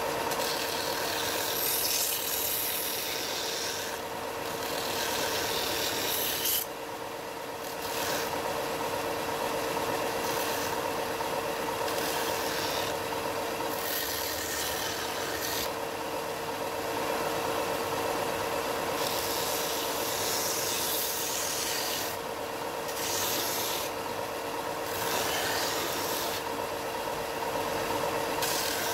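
Bench belt sander running with a steady motor hum while a curved wooden edge is pressed against the moving belt. The sanding rasp rises and falls every few seconds as the piece is worked on and off the belt.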